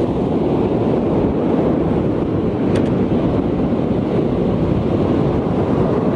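Wind buffeting the microphone over the steady wash of surf breaking on the beach, with one brief faint click about three seconds in.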